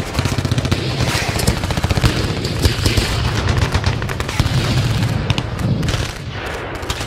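Logo intro sound effect: a dense stream of rapid sharp cracks over a low rumble, thinning out and fading near the end.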